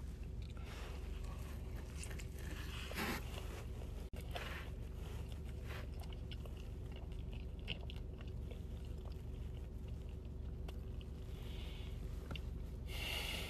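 A person chewing a mouthful of pizza with a crisp crust, small crunches scattered through the chewing, over a steady low hum.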